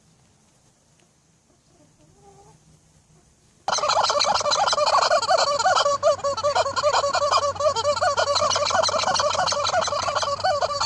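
A flock of farm poultry calling loudly together, many rapid warbling calls overlapping, breaking in suddenly about four seconds in after a quiet start.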